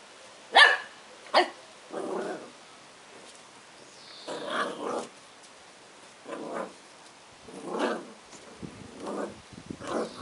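Boxer puppy barking at its own reflection in a mirror: two sharp, high yaps in the first second and a half, then a string of lower, rougher barks every second or two.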